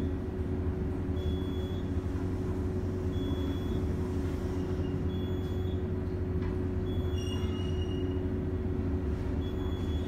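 Elevator car descending: a steady low rumble and hum of the car in motion, with a short high beep about every two seconds.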